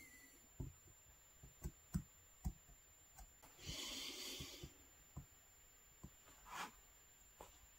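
Faint, scattered clicks and taps of a kolrosing knife scoring lines into a wooden spatula, with a breath lasting about a second about four seconds in and a shorter one near the end.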